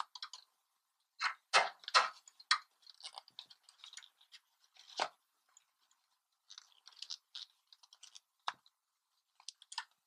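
Plastic water tubing being pushed into a 1/4-inch push-fit elbow and foam-insulated hose being handled: faint scattered clicks, creaks and crackles, a few louder about one to two and a half seconds in and again near five seconds.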